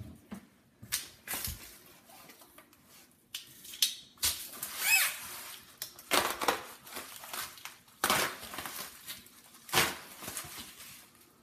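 Bubble wrap being cut open and pulled back off a long rifle: irregular bursts of plastic crinkling and rustling, with quieter handling between them.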